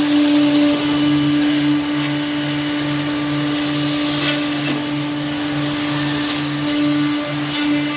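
Motor-driven woodworking saw running steadily: a constant hum with a low throb pulsing about three times a second.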